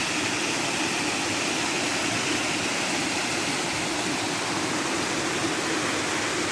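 Steady rush of a waterfall, water falling over rock at low flow with only a little water coming down.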